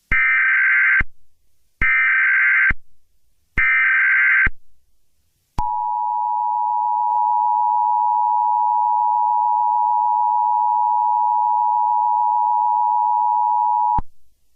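Emergency Alert System tones: three one-second bursts of warbling SAME digital header data, then the two-tone EAS attention signal held steady for about eight seconds before cutting off sharply. This sequence marks the start of an emergency alert broadcast.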